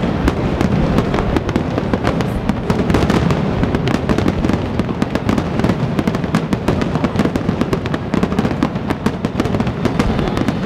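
Professional fireworks display: a dense, continuous stream of crackling reports and bangs from low-level and aerial shells, with no let-up.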